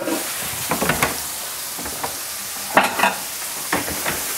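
Veal escalopes with prosciutto frying in olive oil in a non-stick pan, a steady sizzling hiss at turned-down heat. A few short knocks sound over it, about a second in and again near three seconds.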